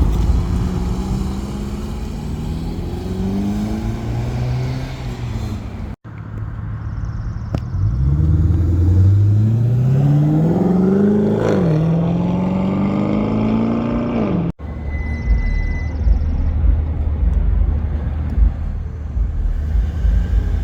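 Car engines accelerating away, the exhaust note climbing in pitch and dropping back at each gear change, in a few separate runs. Near the end a steadier low engine rumble.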